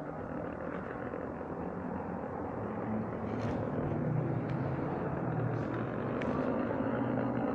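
Steady wind and tyre noise from a Begode Nikola+ electric unicycle rolling over brick paving, growing gradually louder.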